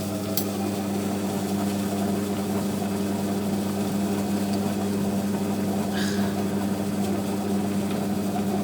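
Monsieur Cuisine kitchen robot's motor running steadily, its blade mixing a stiff semolina dough for msemen: an even, low mechanical hum.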